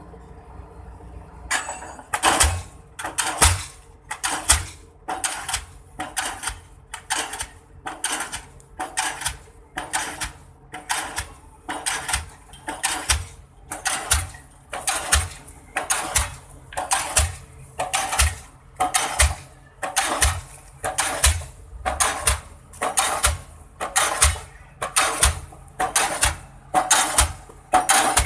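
Diesel pile-driving hammer striking in a steady rhythm, about one blow a second, starting a second and a half in.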